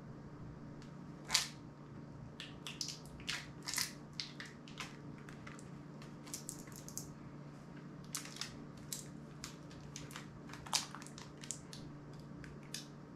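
Small, sharp, irregular clicks and crackles of a smartphone being worked apart by hand, its parts pried and handled; the loudest click comes about a second in and another near the end.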